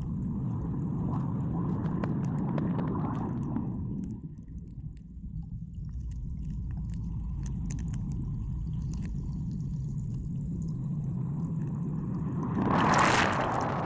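Muffled underwater rumble of moving water, picked up by a phone's microphone sealed in a waterproof case, with a brief louder rush of water and bubbles near the end.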